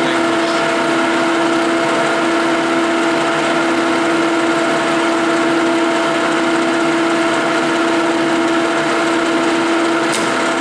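A 1956 Herbert No. 4 capstan lathe running with a steady hum while a Coventry die head threads a 20 mm bar. A single sharp click comes near the end.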